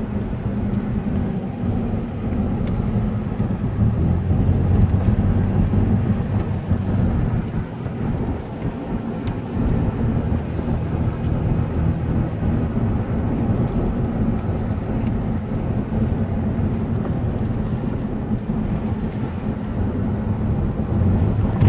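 Car driving at road speed, heard from inside the cabin: a steady engine hum under low tyre and road rumble.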